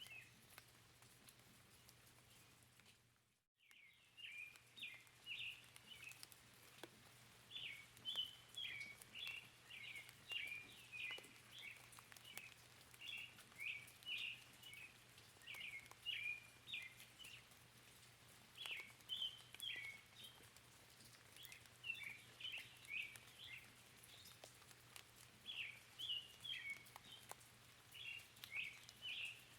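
Faint small-bird chirping in quick clusters of short calls, with a faint patter of light rain underneath. About three seconds in, all sound briefly drops out, then resumes.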